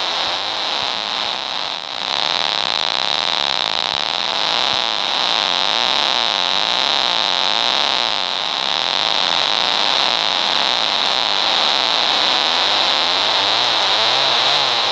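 Harsh electronic synthesizer noise from the Pegboard phone app: a steady, dense hiss with a bright high band, under which a pitched tone warbles quickly up and down, clearest near the end. The sound briefly dips about two seconds in.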